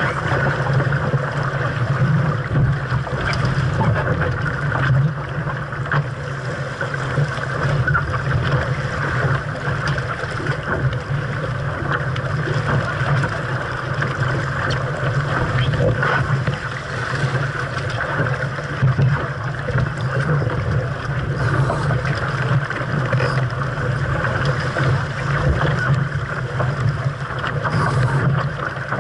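470 sailing dinghy under way in a fresh breeze: a steady rush of water along the hull mixed with wind noise.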